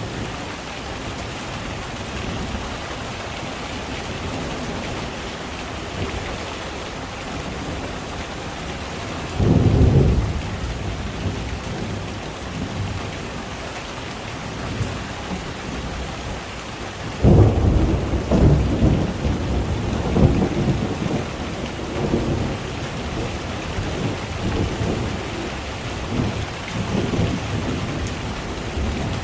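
Heavy rain falling steadily, with thunder: a short loud rumble about nine or ten seconds in, then a longer rolling rumble starting around seventeen seconds that fades out over several seconds.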